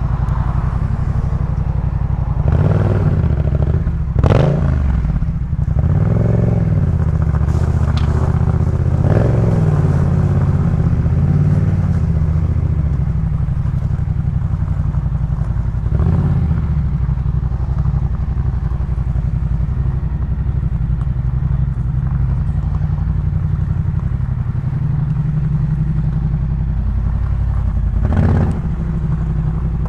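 2018 Yamaha MT-07's parallel-twin engine running through a Jeskap K4 full aftermarket exhaust. Its pitch rises and falls several times in the first ten seconds or so, then it runs steadily, with a few short sharp clatters.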